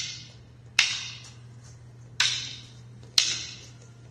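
Wooden fighting sticks clacking together in four sharp strikes, roughly a second apart, each ringing out briefly in the room's echo, over a faint steady low hum.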